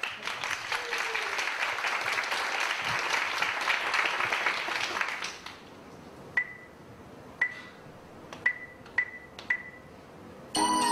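Applause from a small audience for about five seconds, then five short high beeps spread over the next few seconds. Near the end the backing music for her song starts.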